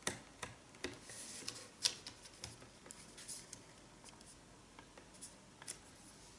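Faint handling of cardstock on a paper trimmer: a string of light clicks and short rustles as the card is slid and positioned under the trimmer's rail.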